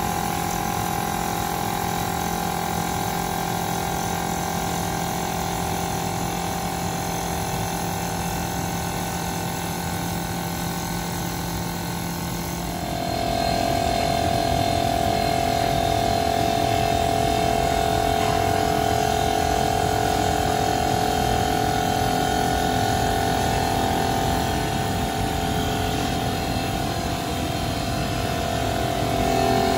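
Woodmaster CNC automatic wood lathe running, spinning and shaping a wooden spindle. It makes a steady machine sound with a held high tone, which drops slightly in pitch and gets louder about thirteen seconds in.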